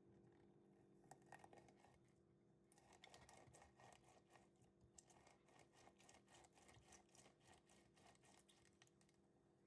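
Faint rapid clicking and scratching, several small hits a second, over a low steady hum.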